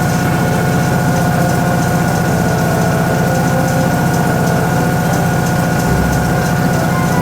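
Toshiba ZABOON washing machine running its cycle: a steady motor hum with a fine, rapid pulsing and a faint, steady high whine above it.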